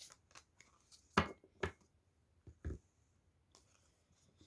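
Tarot cards being handled on a table: a few short, soft card slaps and taps, three of them louder than the rest.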